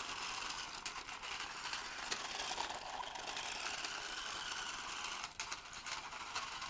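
Toy radio-controlled quad bike's small electric motor whirring as it drives over brick paving, with its plastic wheels rattling and clicking on the block joints.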